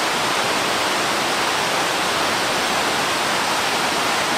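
Steady, unbroken rush of river water pouring over a weir, a loud even hiss with no changes.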